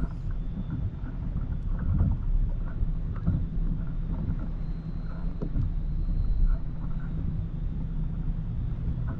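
Wind buffeting the microphone as a steady low rumble, with faint scattered knocks and splashes of water against the kayak.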